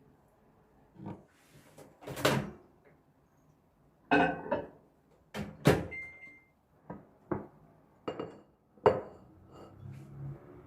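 Kitchen handling sounds: a string of about ten separate knocks and clatters of cookware and utensils being set down and moved. A short high beep comes about six seconds in.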